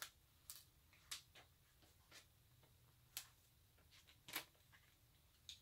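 Faint, scattered small clicks and crackles of clear vinyl transfer tape being peeled up from cut vinyl lettering on a painted wooden cutout, about seven at uneven intervals.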